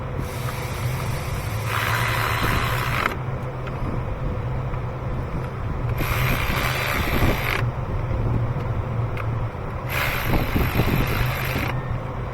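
Hand work in a car's engine bay: parts and fittings being handled, with three spells of hissing, rustling noise and a few small clicks over a steady low hum.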